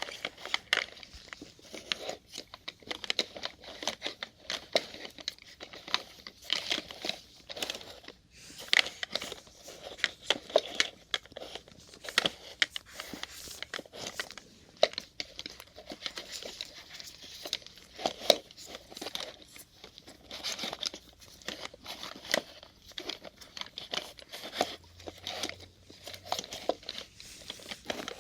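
Plastic syringes being rolled and knocking against one another: a dense, irregular run of small clicks and rattles.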